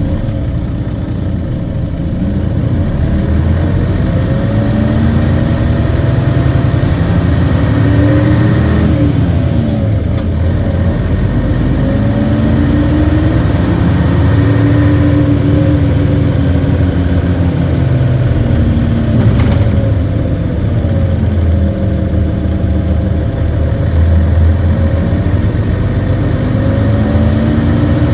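Diesel engine of a Nissan Diesel KC-UA460 city bus pulling through its gears: the engine note climbs over a few seconds, drops at each gear change, and climbs again, several times over, with a faint whine rising alongside it in places.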